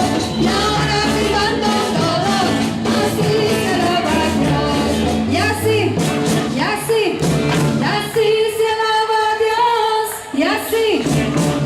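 A worship song: a voice singing over amplified backing music with a steady beat, holding one long note near the end.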